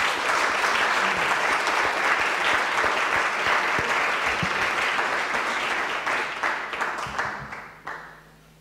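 Audience applauding, a dense, steady clapping that thins out into scattered claps and dies away near the end.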